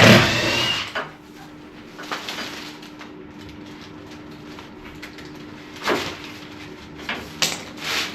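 Metal bodywork being handled during car door removal: a loud scrape and clatter lasting about a second at the start, then two sharp knocks near the end, over a steady low hum.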